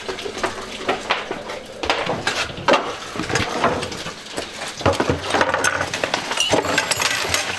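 Rummaging and handling noise: irregular knocks, clinks and clatter as tools and a cardboard box are moved about, with footsteps on a plywood floor.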